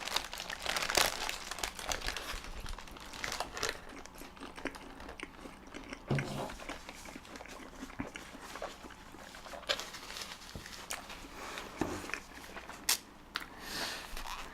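Close-up eating sounds from chili dogs being chewed, with irregular small clicks and crackles and the crinkle of paper wrapping.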